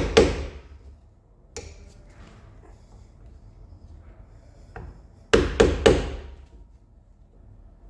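Hammer blows on metal, knocking off the rear hub's grease cap: a single strike, a knock, then a burst of three quick, loud, ringing strikes a little past halfway.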